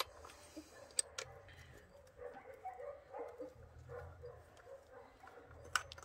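A screwdriver clicking and scraping against a chainsaw's chain-tension screw and bar nuts while the chain tension is adjusted, with sharp metallic clicks about a second in and near the end. Faint animal calls in the background.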